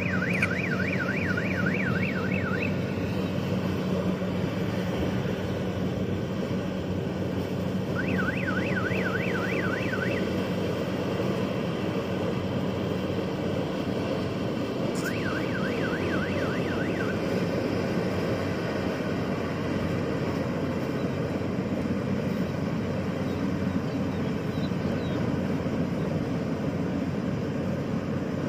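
Yanmar rice combine harvester running steadily while harvesting, its engine making an even drone. Three times, for about two seconds each (at the start, about eight seconds in and about fifteen seconds in), a rapid warbling tone sounds over the engine.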